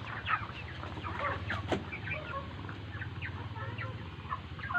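A flock of chickens chirping and clucking with many short calls over a steady low hum, with a sharp tap about 1.7 seconds in. The keeper says the birds are 'ngorok', rattling or snoring in their breathing, a respiratory sign he puts down to the rainy season and poorly chlorinated drinking water.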